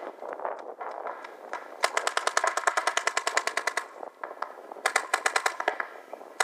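Paintball markers firing in rapid strings, about a dozen shots a second. There is a two-second string about two seconds in, a shorter one about five seconds in, and another starting at the very end.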